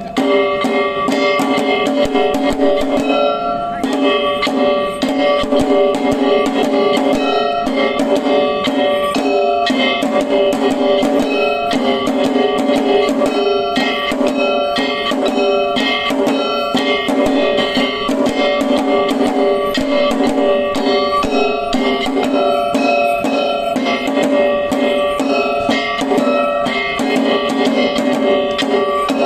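Accompaniment for a Sanuki lion dance: drums beaten in a fast, continuous rhythm, with held ringing tones over them.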